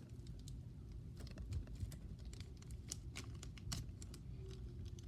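Faint, scattered small clicks and crinkles of a plastic bag and tape being folded over and pressed down by hand.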